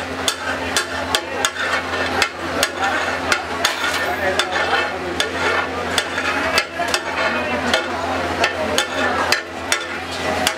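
Metal spatula clinking and scraping on a large flat griddle (tawa) as pav bhaji is stirred and spread, sharp clinks coming irregularly a few times a second over a steady low hum.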